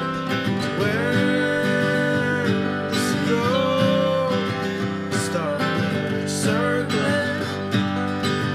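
Two acoustic guitars playing a folk tune together, one of them a metal-bodied resonator guitar. A few long notes slide up in pitch and hold.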